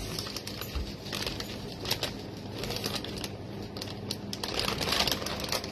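Plastic zip-top bag crinkling and rustling as hands work at it to open it.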